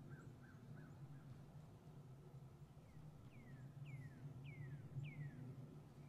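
A bird calling: a run of about five falling whistled notes, a little over half a second apart, each louder than the one before, after a few soft short notes near the start. A faint steady low hum lies underneath.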